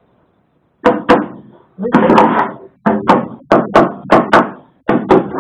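A run of sharp metallic knocks, each ringing briefly, starting about a second in and coming faster, about three a second, in the second half: a hand tool striking the rusted steel bulkhead of a Jaguar E-Type 2+2 body shell.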